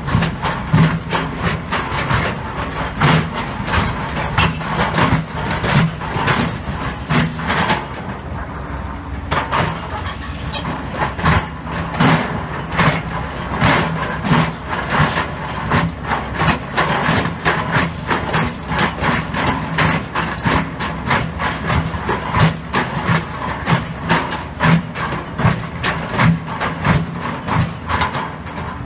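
Excavator engine running steadily under load while its bucket scrapes and knocks through concrete rubble and steel rebar, with frequent clanks and crunches.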